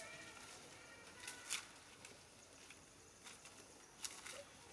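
Near silence: faint outdoor background hiss with a few soft clicks or rustles.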